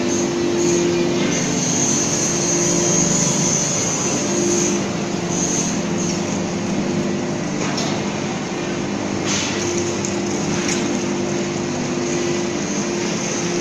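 Steady din of leaf spring production machinery running in a factory workshop, a low hum under an intermittent high whine, with a few short knocks.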